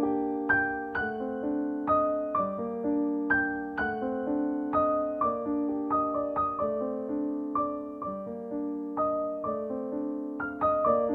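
Background piano music: gentle notes and chords struck at an unhurried pace, each ringing on and fading.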